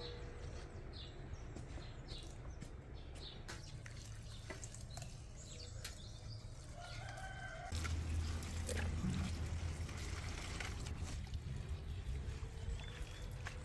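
A rooster crowing and chickens clucking, over water running from a garden tap into a steel bowl, with splashing and clatter as greens and plucked chickens are washed by hand.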